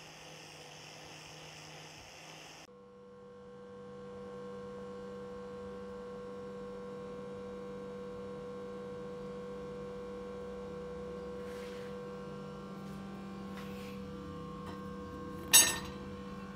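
A wire wheel on an angle grinder scrubbing the steel blade gives a faint hiss that cuts off suddenly a few seconds in. A steady electrical hum with several even tones follows, and a single sharp knock is heard near the end.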